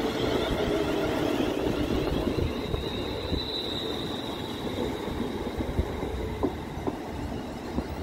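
London Northwestern Railway Class 350 Desiro electric multiple unit passing close by: a steady rumble of wheels on the rails with a high electric whine that swells about three seconds in, and a few sharp clicks near the end.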